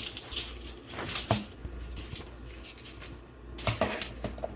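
Scattered light knocks and clatters of kitchenware being handled, about five in all, the loudest about a second in and again near the end, over a low steady hum.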